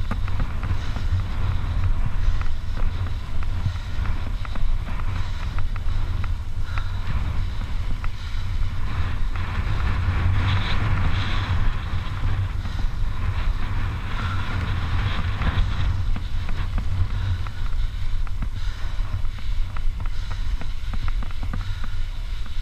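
Heavy wind buffeting on the microphone of a mountain bike descending fast on a dirt fire road. Under it, the knobby tyres hum on the dirt and the bike rattles with many small clicks over the ruts.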